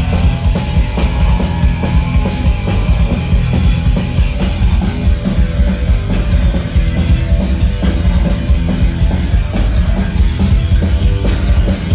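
Loud heavy rock music from a full band, with a driving drum kit and electric guitars, playing without vocals.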